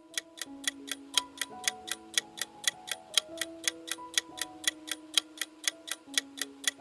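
Clock-style ticking countdown sound effect, about four even ticks a second, over soft background music of held notes.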